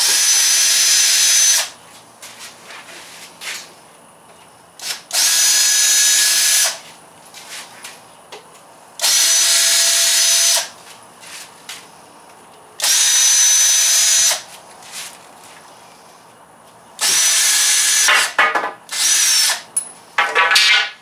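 Cordless drill-driver running in repeated bursts of about a second and a half, roughly every four seconds, with a steady high motor whine; the last few runs are shorter and choppier. It is driving out the screws that hold a temporary wooden strip along the edge of the panel.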